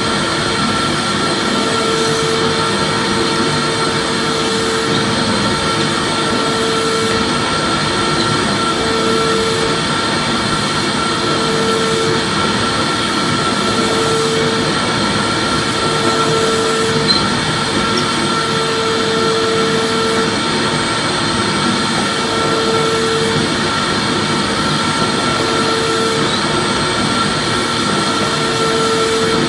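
Vacuum cleaner motor running steadily, a constant rushing noise with a high whine, and a lower hum that comes and goes every few seconds.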